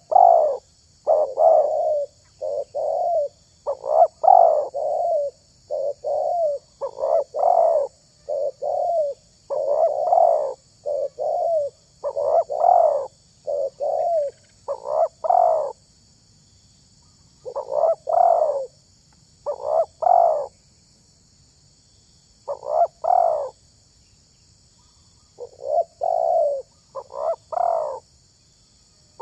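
Spotted dove cooing: a long series of short coo phrases, each a few notes, separated by brief pauses and now and then a gap of a second or two.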